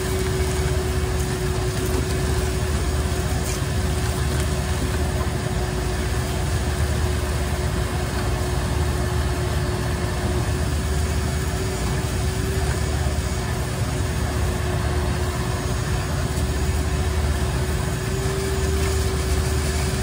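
Wet/dry shop vacuum running with a steady motor whine, sucking standing condensate water out of a rusted, corroded rooftop-unit drain pan.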